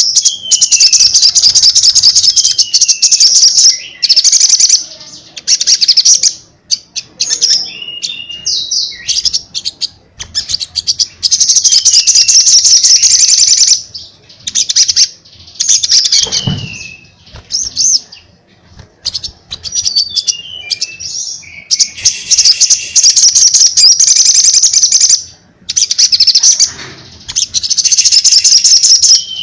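Male olive-backed sunbird singing loudly and persistently: phrases of very rapid, high-pitched trills mixed with short falling whistles, each phrase lasting one to a few seconds with brief pauses between.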